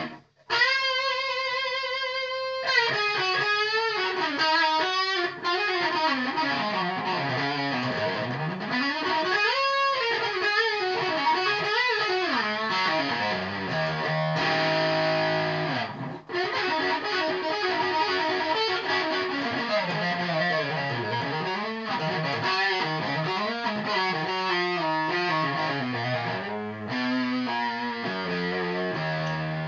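Electric guitar played through distortion: a held note with vibrato, then notes sliding up and down in pitch over a sustained low note.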